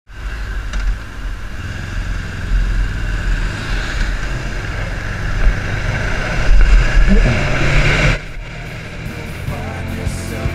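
A motorcycle riding on a road, heard through a bike-mounted camera: heavy wind buffeting on the microphone over the engine, getting louder, then cut off abruptly about eight seconds in. Rock music starts near the end.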